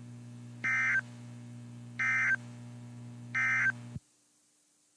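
Emergency Alert System end-of-message data signal: three short bursts of buzzy digital tones, about a second and a third apart, marking the end of the alert message. Under them a low steady hum runs and cuts off abruptly about four seconds in.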